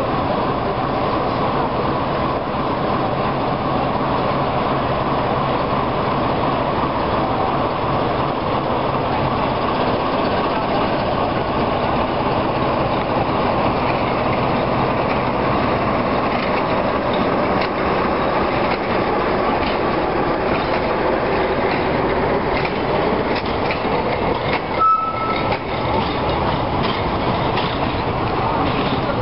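CFR diesel-electric locomotive passing close, its engine running loudly. The passenger coaches behind it roll past with steady wheel clatter on the rails, and there is a brief high squeal near the end.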